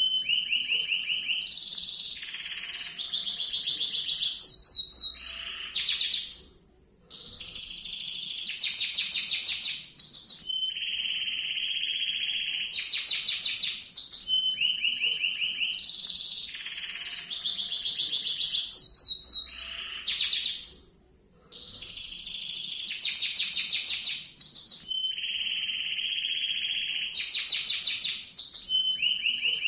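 Domestic canary singing a long rolling song of fast trills and rolls, high and continuous, with two short breaks, about six seconds in and again about twenty-one seconds in.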